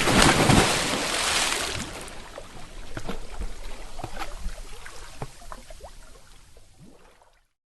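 Water splashing, loudest in the first two seconds, then sloshing and dripping as it settles, with many small drops plinking, fading out over about seven seconds.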